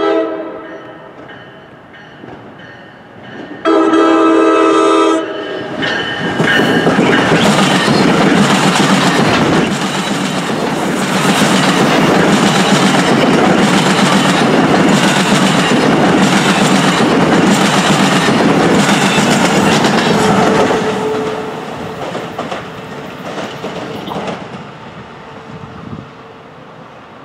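NJ Transit commuter train with bi-level coaches sounds its horn, a brief blast at the start and a longer, louder blast about four seconds in. The train then passes close by, its wheels clicking in a steady rhythm over rail joints for about fifteen seconds before the sound fades away.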